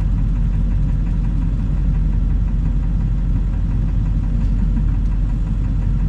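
Steady low engine and road rumble heard from inside a moving vehicle's cabin.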